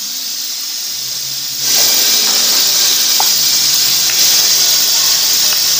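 Steady, loud hiss of rushing air with a faint low hum under it, stepping up in loudness about two seconds in and then holding steady.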